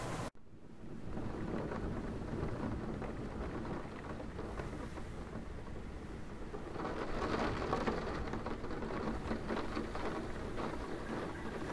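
Steady rain during a thunderstorm, with a low rumble of thunder swelling about seven seconds in.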